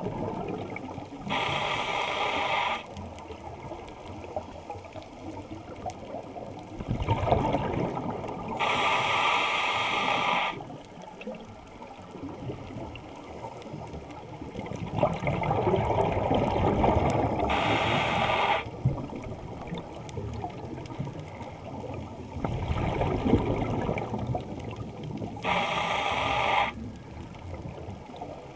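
Scuba regulator breathing heard underwater: slow breaths about every eight seconds, a rumbling gush of exhaled bubbles alternating with a short hiss of inhaled air drawn through the regulator, four breaths in all.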